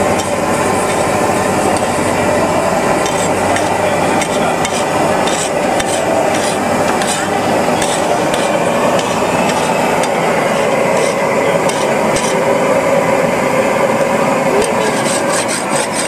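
Metal spatula scraping, clattering and tapping on a large flat pav bhaji griddle (tawa) as the bhaji is stirred and mashed, with quick runs of clicks now and then, over a steady hum of street noise.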